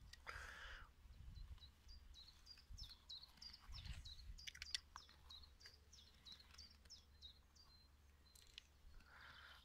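Faint outdoor quiet with a small bird singing a rapid run of short high chirps. A few light clicks come about four to five seconds in as water-pump pliers grip a brass pipe union fitting.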